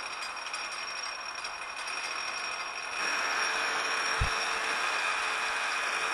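Small metal lathe turning bar stock on a light finishing pass of about 50 thousandths: a steady spindle whine under the noise of the cut, which grows louder about three seconds in. A single low thump a little past the middle.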